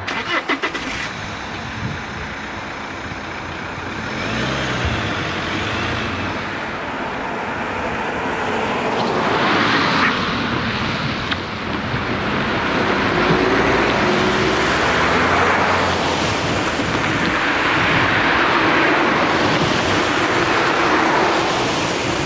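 Cars driving one after another over the level crossing once the barriers are up, each pass of tyres and engine swelling and fading. A quick run of sharp clicks comes right at the start.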